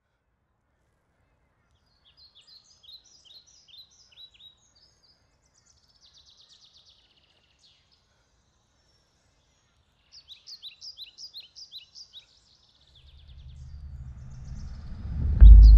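Songbirds chirping in short quick series, with a brief trill between them, over near silence. Near the end a low rumble swells up and breaks into a loud, deep boom.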